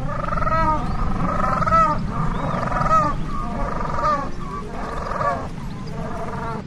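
Penguin calling: a series of loud, harsh pitched calls, one about every second, with a low steady rumble underneath.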